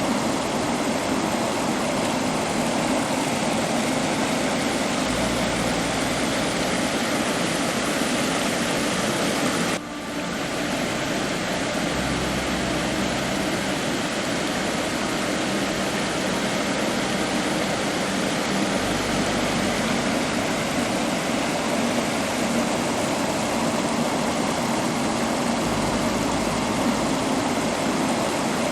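Waterfall water rushing steadily, with a brief dip in level about ten seconds in.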